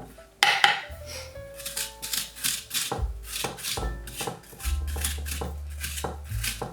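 Background music with held bass notes and a melody, over a run of short, sharp clicks.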